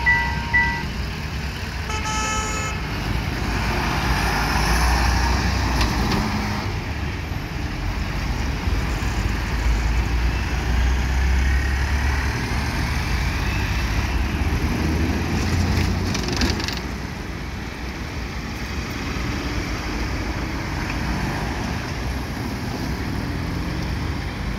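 Road traffic moving over a railway level crossing as the barriers lift: cars, trucks, a bus and motorcycles pass in swells of engine and tyre noise. The crossing's warning signal gives its last couple of beeps and stops under a second in, and a vehicle horn toots briefly about two seconds in.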